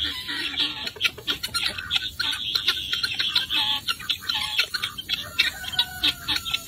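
Flock of helmeted guineafowl giving harsh, rapid, repeated alarm calls at a snake they have surrounded, a warning that a predator is present. One long, slightly falling call comes near the end.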